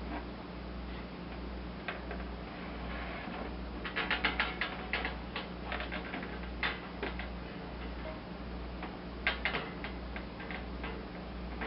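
Roper Whitney No. 5 Junior hand punch working tin sheet: clusters of sharp metallic clicks and snaps, three main bursts as the punch is set and squeezed and the tin shifts. A steady low hum runs underneath.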